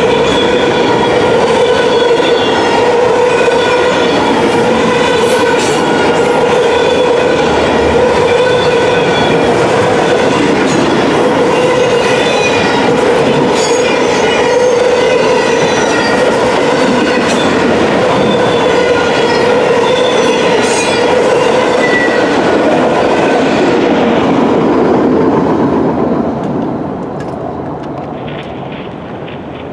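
Freight train of enclosed autorack cars rolling past on steel wheels: a steady, loud rolling rumble with ringing wheel squeal over it. About 26 seconds in the last car passes and the sound quickly dies away.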